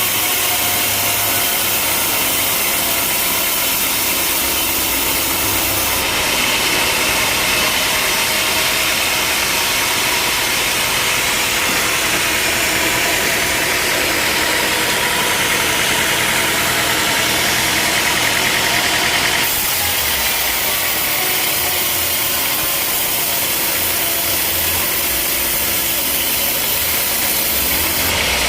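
Sawmill running steadily; about six seconds in a harsh hiss joins as the saw cuts through a log, ending about thirteen seconds later, when the machine runs on without load.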